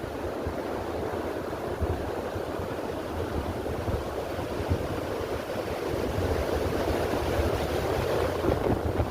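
Strong storm wind rushing through trees, with wind buffeting the microphone. The rush swells a little toward the end.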